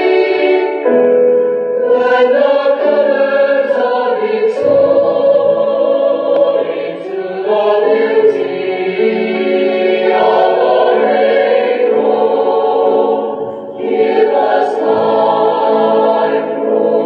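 Choral music from Vatican Radio's digital shortwave (DRM) broadcast, played through an Avion AV-DR1401 DRM receiver: voices singing long held notes that change every second or two.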